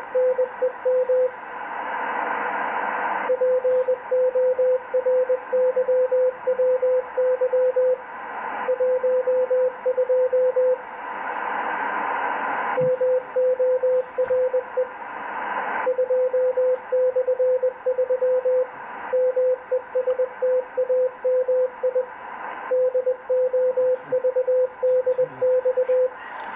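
Morse code (CW) received on a Kenwood TS-890 transceiver on the 15 m band: a single tone of about 500 Hz keyed in dots and dashes, in runs of a few seconds. Band hiss swells in the pauses between the runs.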